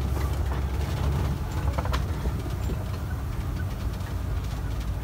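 Safari ride truck driving along a dirt track, its engine and tyres making a steady low rumble heard from inside the open-sided cabin.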